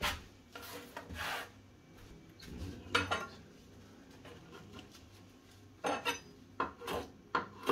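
Chef's knife clicking and knocking on a kitchen worktop: a sharp knock about three seconds in, then from about six seconds a run of quick taps as the blade starts chopping fresh basil leaves.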